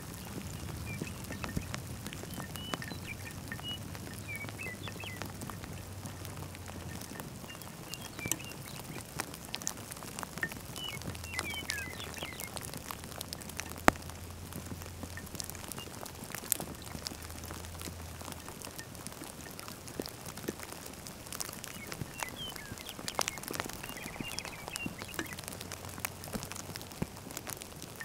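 Light rain: scattered raindrop ticks landing on and around the camera and microphone. A few short bird chirps come in now and then, and a low wind rumble comes and goes.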